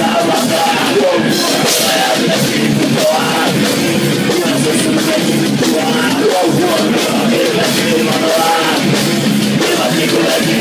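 Live rock band playing loud, with guitar and a drum kit pounding out a steady, cymbal-heavy beat.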